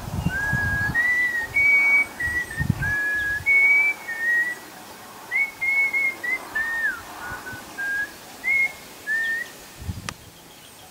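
A person whistling a slow tune: a string of clear, held notes, some gliding up or down, that stops about a second before the end.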